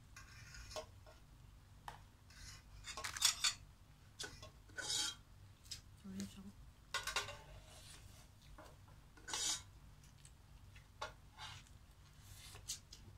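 Spoons scraping and clinking against a clear plastic takeaway container and a metal tray during eating, in short scattered scrapes, the loudest about three seconds in.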